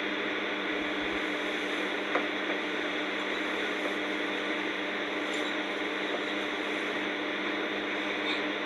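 Steady hum with an even hiss, with a faint click about two seconds in; no breathing or snoring rhythm stands out.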